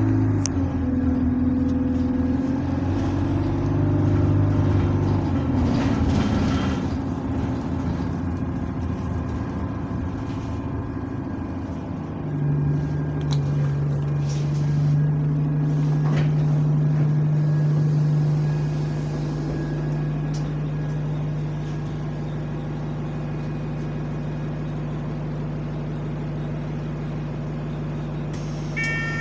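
Bus diesel engine heard from inside the saloon, its note shifting in pitch as the bus drives for the first twelve seconds or so. It then settles into a steady low drone, which drops in loudness about six seconds later.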